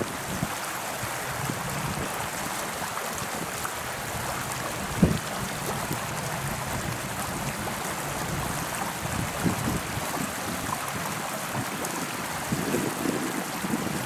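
Outdoor wind noise: a steady hiss, with gusts buffeting the microphone in low thuds about five seconds in and again near the end.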